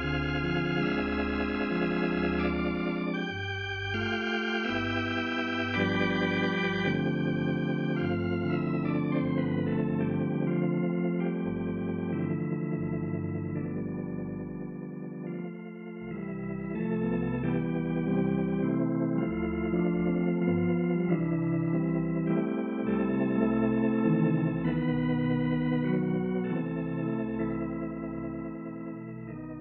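Organ music playing slow, held chords that change every second or so, dipping briefly in the middle before swelling again.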